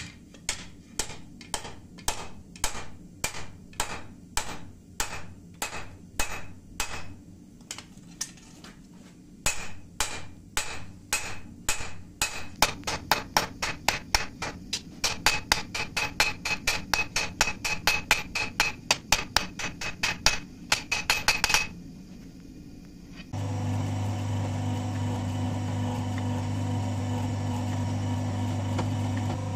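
Hand hammer striking a red-hot wootz-steel katana blank on an anvil in a steady run of ringing blows, about two a second at first and quicker and louder from about ten seconds in, stopping after about twenty-two seconds. A second or so later a forging press's motor starts and runs with a steady hum.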